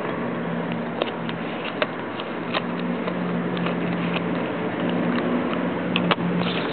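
Scattered light clicks and taps of a mailer package being handled and opened by hand, a pair of sharper clicks near the end, over a steady low hum and hiss.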